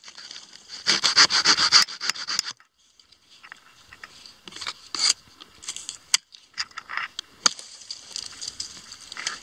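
Close rubbing and scraping: a dense rasping stretch about a second in, then after a short pause a few scattered light clicks and scrapes.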